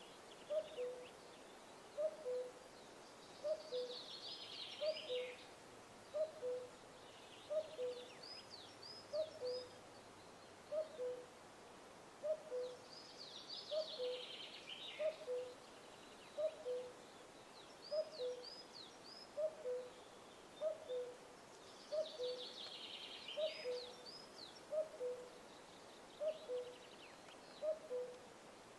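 A bird's soft two-note call, a higher note then a lower one, repeated steadily about once a second, with other birds singing high, twittering phrases at intervals over it.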